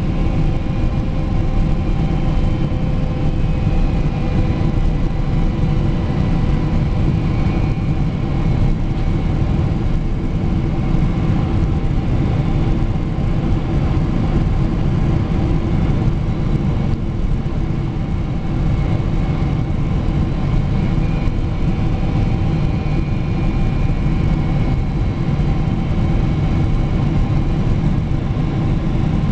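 Steady engine drone and airflow rumble inside the cabin of a Boeing 777 descending to land, with thin whining tones above it, one of them sliding slightly lower over the first several seconds.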